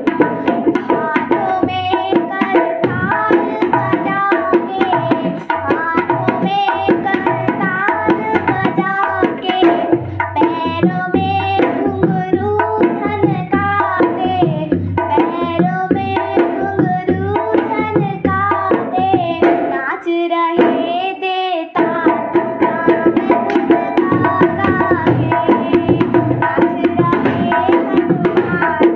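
A devotional bhajan sung by girls to a dholak, the two-headed barrel hand drum, playing a steady rhythm under the melody. The deep drum strokes stop briefly about two-thirds of the way through, then resume.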